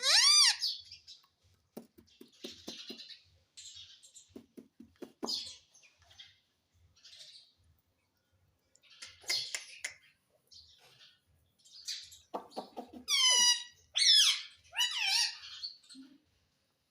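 Pet ring-necked parakeet squawking and chattering. A loud squawk comes right at the start, softer scratchy chatter follows through the middle, and a run of loud screeches falling in pitch comes near the end.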